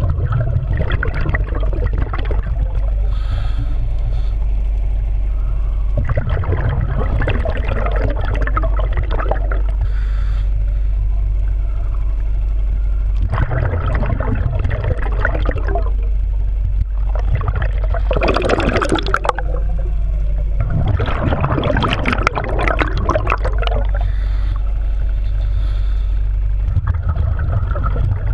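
Scuba diver's exhaled bubbles from the regulator bursting out in a rushing, gurgling gush every four to five seconds, six breaths in all, over a steady low underwater rumble.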